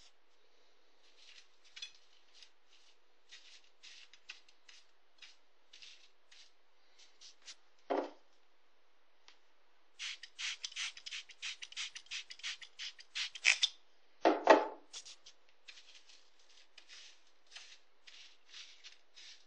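Bone-dry, brittle pipe tobacco crackling and rustling as a hand works through it in a ceramic dish, in scattered crackles that thicken into a dense run about ten seconds in. Two duller knocks come about eight seconds in and about fourteen seconds in, the second the loudest sound.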